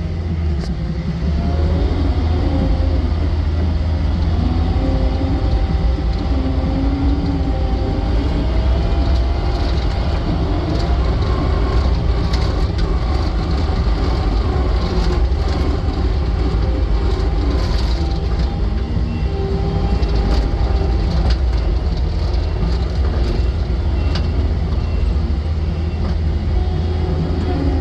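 2021 Takeuchi TL10V2 skid steer's diesel engine running steadily while the hydraulics are worked. There is a constant low drone, faint whining tones and occasional brief knocks.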